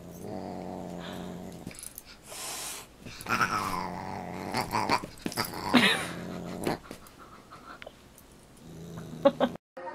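A dog growling in low, drawn-out stretches during a play fight with a cat, with a couple of sharp cries that fall steeply in pitch.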